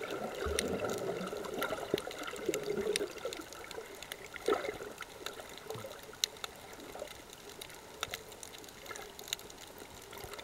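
Underwater ambience picked up by a submerged camera: a muffled, steady watery rush with scattered sharp clicks and crackles.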